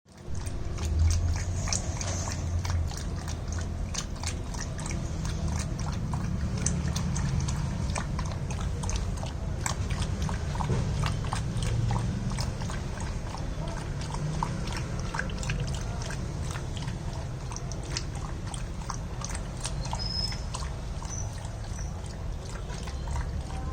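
Beagle puppy lapping and slurping buttermilk: a long irregular run of quick wet clicks over a steady low hum, with a brief high squeak about twenty seconds in.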